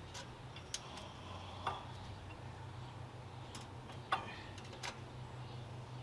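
About half a dozen light, scattered metallic clicks and taps of hand tools working on the alternator bracket, over a low steady hum.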